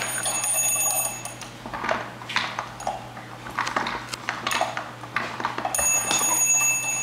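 A steady high-pitched ringing tone with several pitches together, like an alarm or electronic chime, heard for about the first second and a half and again near the end. Short knocks and clatters come in between.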